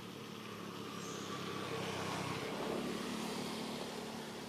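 A motor vehicle passing off-screen: engine and tyre noise that grows louder to a peak a little past halfway, then fades.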